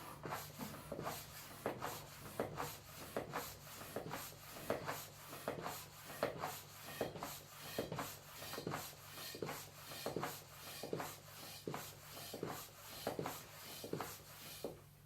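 Hand pump being worked to inflate a football, a short stroke of pumped air about twice a second, steady and rhythmic throughout.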